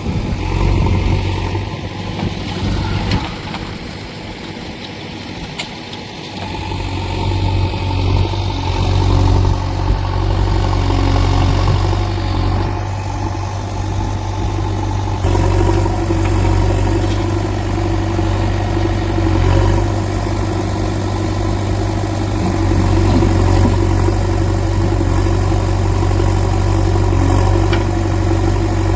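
JCB 3DX backhoe loader's diesel engine running steadily, its low rumble growing louder about six seconds in.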